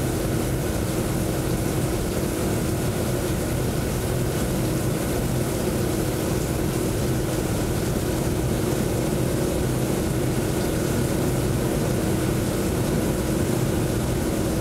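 Steady rush of falling water from a water-drop installation, with a constant machine hum holding one steady tone underneath.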